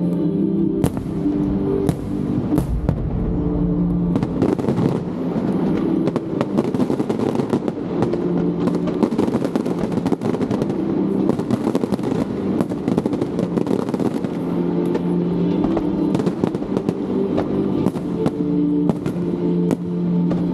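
Aerial fireworks bursting and crackling in rapid succession, with the sharp crackle densest through the middle stretch. Music with sustained low notes plays alongside, most clearly at the start and in the last third.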